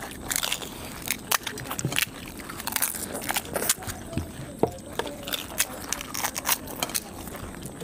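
Crisp, hollow fried puri shells cracking as they are poked open and crunched between the teeth, with chewing: many short sharp cracks at an uneven pace.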